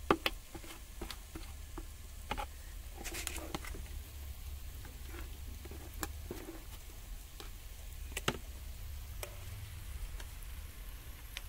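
A steel ladle stirring and beating thin jalebi batter of maida in a plastic bucket, with irregular knocks of the ladle against the bucket and wet slaps of batter, over a faint steady sizzle of jalebis frying in hot oil.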